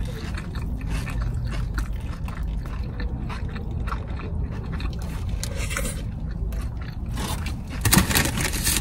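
A person eating close to the microphone: chewing and biting with small crackles and scraping sounds, over a steady low hum. A louder cluster of rustling and crackling comes near the end.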